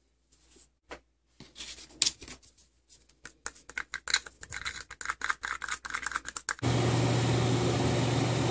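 A wooden stick stirring thinned metallic paint in a small plastic cup, rapid scraping and clicking against the cup's sides, sparse at first and then dense. About six and a half seconds in, a steady machine hum starts abruptly.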